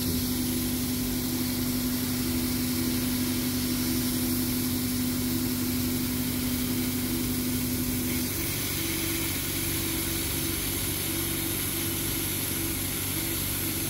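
CO2 laser cutting machine running a cutting pass on 18 mm plywood: a steady machine hum and hiss, with a strong steady tone that stops about eight seconds in.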